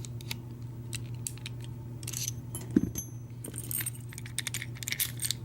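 Small metallic clicks and jingles of a Schlage deadbolt's parts and key being handled and turned, with one louder knock a little under three seconds in. A steady low hum runs underneath.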